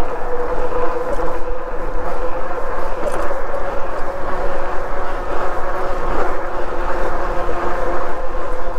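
Himiway Zebra fat-tire e-bike rolling fast downhill: a steady hum from the tires and drive over a constant rush of wind on the microphone.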